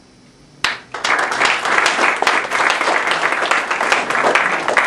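Small audience applauding: a dense run of hand claps that starts suddenly about half a second in and keeps going.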